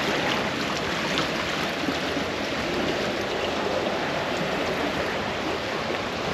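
Shallow brook water rushing steadily over rocks and broken concrete slabs.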